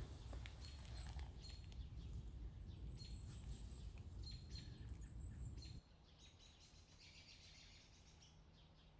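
Faint woodland ambience with small birds chirping and calling, over a low rumble that drops away abruptly about six seconds in.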